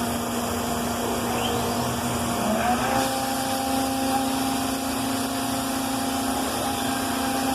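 CNC router running with its vacuum hold-down on: a steady machine hum whose pitch steps up slightly about three seconds in.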